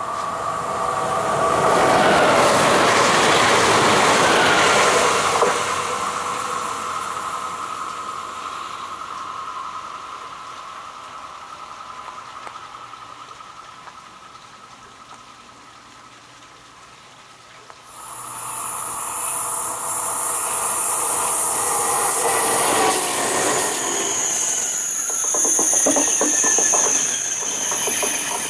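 A train passes loudly with a slightly falling tone and dies away. About two-thirds of the way in, the sound of a double-deck TGV Duplex high-speed train starts suddenly and stays loud as it rushes past, with a high hiss and a run of rapid wheel clicks over the rail joints.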